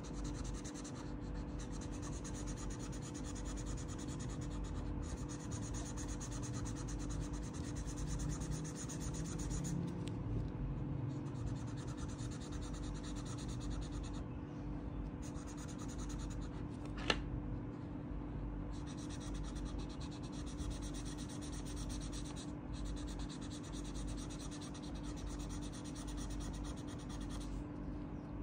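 Soft-tip marker scribbling back and forth on paper: a steady rubbing hiss broken by short pauses between strokes, with one sharp click a little past halfway.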